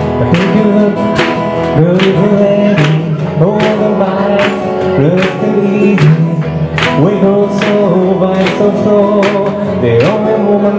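Acoustic guitar and ukulele strummed together in a steady rhythm, about two strums a second, under a man singing.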